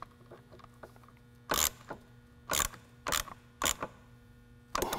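Hand ratchet with an 11 mm socket clicking as it tightens the terminal nut on a circuit breaker: five short bursts of ratcheting, starting about a second and a half in.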